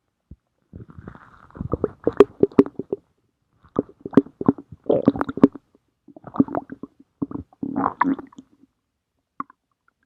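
Stomach growling: four bouts of bubbling, gurgling rumbles, each a second or two long with short pauses between them, and one brief click near the end.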